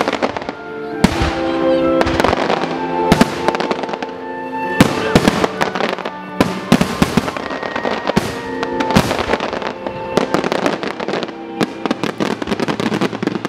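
Aerial firework shells bursting in a string of sharp bangs and crackles that thicken into rapid crackling near the end, over music playing for a fireworks show set to music.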